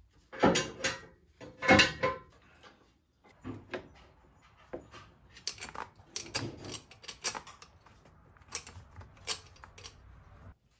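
Hand tools working on a van engine: scattered metallic knocks and clicks, two loud clanks in the first two seconds, then a run of lighter clicks as a part is wrenched loose.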